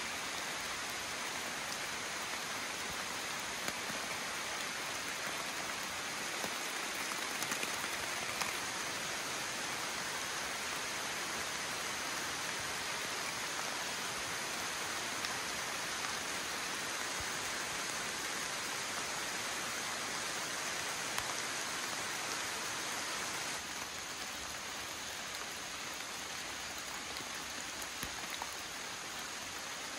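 Steady summer rain falling on forest leaves, a constant patter with a few louder single drops now and then.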